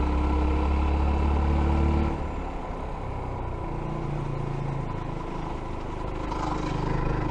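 F.B Mondial Pagani 300 motorcycle engine running under way. Its deep steady note drops away about two seconds in as the throttle eases, and the engine runs quieter before picking up a little near the end.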